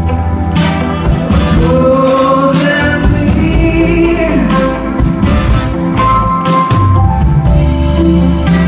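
A live band playing a neo-soul song: drums, bass, electric guitar, keyboard and horns, with a singer over them. Drum hits come at a steady beat under long held notes.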